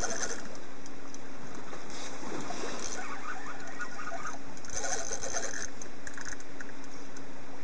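Penn Slammer 360 spinning reel whirring in several short bursts while fighting a hooked coalfish on a heavily bent rod, over a steady low hum.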